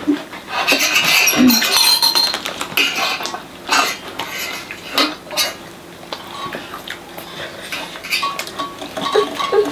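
Spoons and forks clinking and scraping against metal plates during a meal, in irregular strikes that are thickest in the first few seconds and then come singly.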